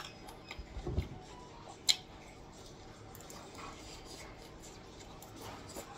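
A metal spoon clinking a few times against a ceramic plate and bowl while eating, with a dull knock about a second in and the sharpest click about two seconds in.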